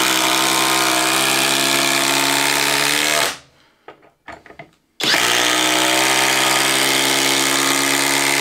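Flex 24V brushless impact driver driving long fasteners into stacked OSB boards under load, impacting. It runs in two bursts of about three to four seconds each, with a short pause and a few light clicks between them as the next fastener is set.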